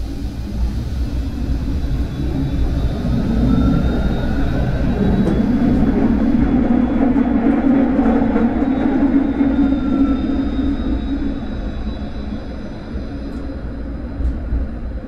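Vario LF2+ low-floor tram pulling away on a green signal: the traction drive's whine rises in pitch as it accelerates over a growing rumble of wheels on rails, then the whine falls away as it eases off about two-thirds of the way through.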